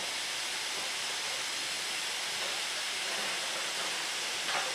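Saxon IV K narrow-gauge steam locomotive No. 176 standing with steam escaping, a steady hiss, with a short knock near the end.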